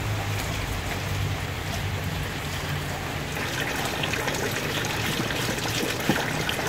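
Steady rain falling on water and ground: an even hiss with scattered small drop ticks, over a low steady hum.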